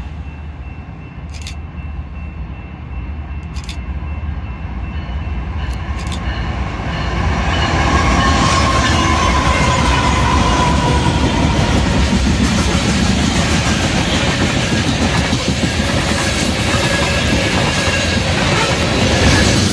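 BNSF freight train approaching and passing close by. The diesel locomotives grow louder and go by with a brief whine about eight seconds in. A long string of open-top hopper cars then rolls past with a steady rumble and clatter of wheels on rail.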